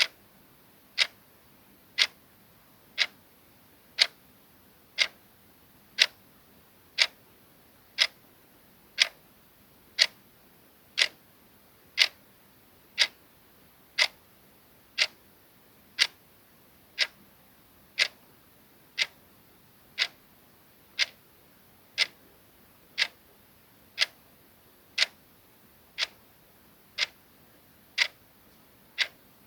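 Clock ticking, one sharp tick every second, steady and even.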